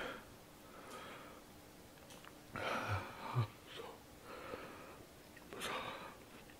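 A man breathing hard and noisily through the mouth in a few short rushes of air, the loudest about halfway through and again near the end, reacting to the burn of extremely spicy fried noodles.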